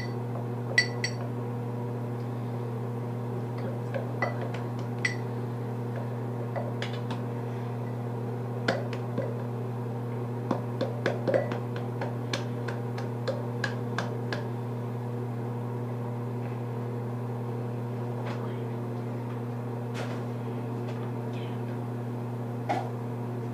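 A steady low electrical hum throughout, with scattered light clicks and taps, as of a utensil knocking against a container while slime is mixed. The taps come thickest in the middle.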